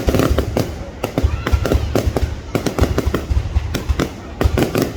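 Fireworks going off in a dense, continuous barrage: many sharp bangs and cracks a second, over a steady low rumble.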